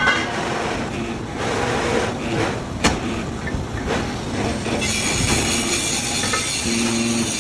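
Steady machinery noise from excavator track chain assembly, with one sharp knock about three seconds in and a hiss joining from about five seconds in.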